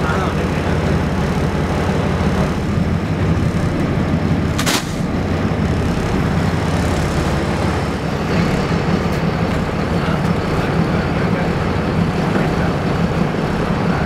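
Boat engine running with a steady low drone, and one sharp knock about five seconds in.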